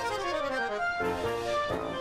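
Background music: a light melody on an accordion-like instrument, with notes changing several times a second.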